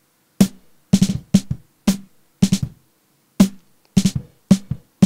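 Solo snare drum track playing a pattern of hard hits mixed with quick ghost-note strokes, each with a short ring. It runs through 500-series analog EQ with a cut near 180 Hz that makes the snare sound a bit boxy.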